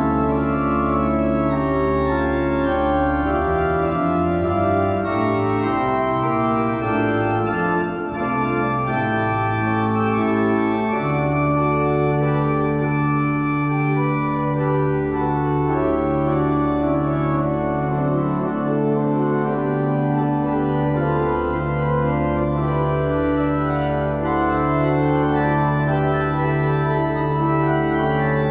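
Organ playing a hymn in full sustained chords, with long held low bass notes in the second half.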